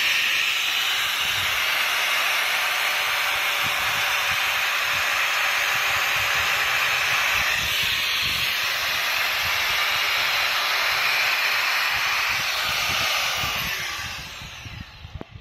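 Electric angle grinder with a sanding disc running steadily while sanding epoxied plywood chines smooth, then spinning down near the end.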